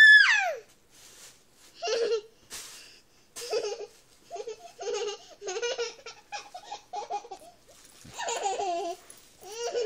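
Baby laughing and giggling in short bursts, with a longer burst near the end. A high squeal slides steeply down in the first half second.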